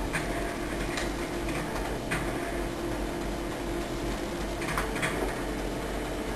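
Steady indoor background hum with a few faint light clicks, about a second in, around two seconds, and near five seconds.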